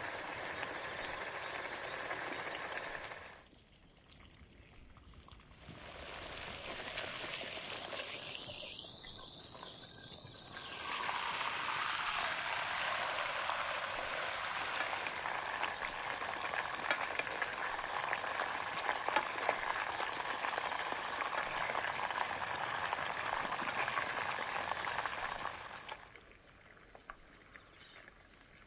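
Steak sizzling in butter in a hot skillet: a steady frying hiss sprinkled with small pops and crackles. It drops out briefly about three and a half seconds in and fades away near the end.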